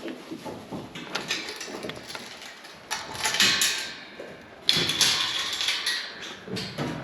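A sliding barn door being worked open, scraping and rattling in two bursts, the louder one starting sharply about five seconds in.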